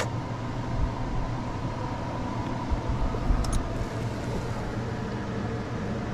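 Steady hum of a shop fan or air conditioner, with a click at the start, a few low bumps and light metallic clicks a little past halfway as lifter trays are handled in the open engine.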